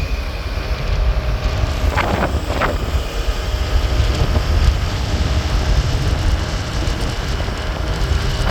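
Riding on a motorbike: the engine running and wind buffeting the microphone in a steady loud rumble. Two short louder rushes come about two seconds in.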